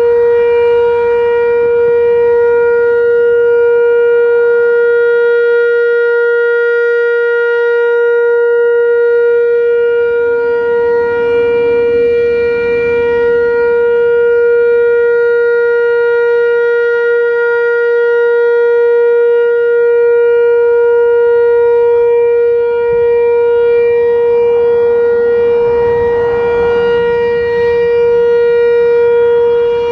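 Analog Whelen WPS-4004 electronic warning siren sounding its Alert signal during a test: one loud steady tone with a row of overtones, held without a change in pitch.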